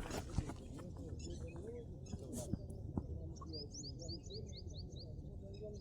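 A bird chirping: a quick run of about ten short high notes starting about three and a half seconds in, over faint distant voices and a steady outdoor rumble.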